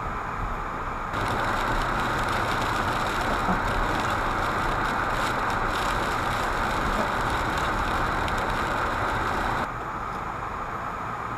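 Car interior noise while driving, heard from a dashboard camera. About a second in, a louder steady hiss starts abruptly; it cuts off just as suddenly near the end.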